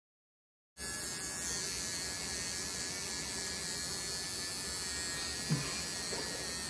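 Electric hair clippers running with a steady buzz, starting abruptly about a second in, with one brief soft thump near the end.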